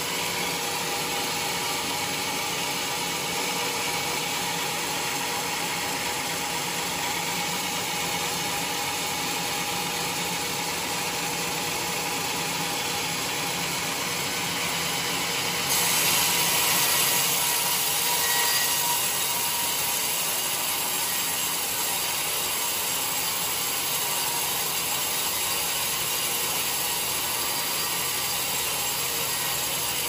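Large band sawmill cutting lengthwise through a teak log: a steady, noisy mechanical whir from the running blade and carriage, with a faint hum. About halfway through the cutting grows louder and hissier for a few seconds, then settles back.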